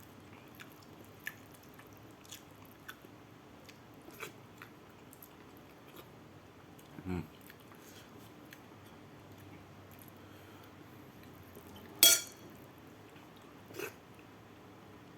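Close-up eating of rice with sambal: faint scattered chewing and mouth clicks, a short low sound about seven seconds in, and a loud sharp knock about twelve seconds in, followed by a smaller one nearly two seconds later.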